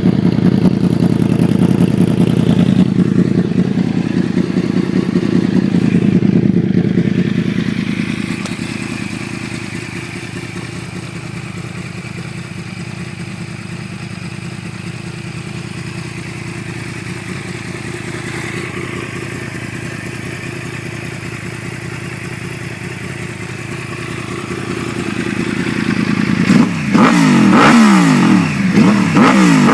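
Yamaha R1 inline-four sport-bike engine running, first at a faster idle that settles to a steady lower idle, then revved in several quick blips near the end.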